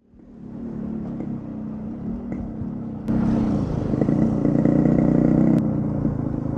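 Motorcycle engine running as the bike is ridden. It fades in over the first second and gets abruptly louder about three seconds in.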